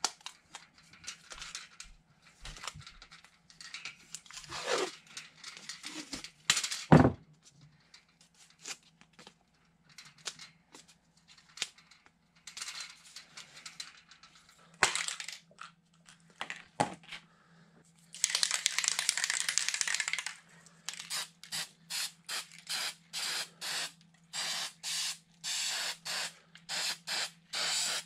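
Blue painter's tape being pulled off the roll, torn and wrapped around steel rods, with scattered ripping and handling noises. About two-thirds of the way in, an aerosol spray paint can sprays one long burst of about two seconds, then short quick bursts, about two a second.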